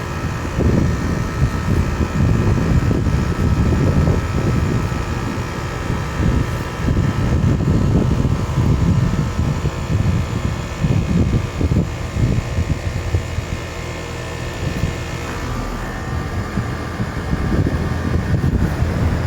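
A 3.5-ton Goodman heat pump outdoor unit running in cooling mode: a steady hum from its compressor and condenser fan, with gusts of wind buffeting the microphone as a low rumble that comes and goes.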